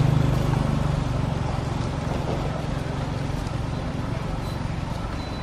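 A motor vehicle's engine running steadily with a low hum, loudest at the start and slowly fading.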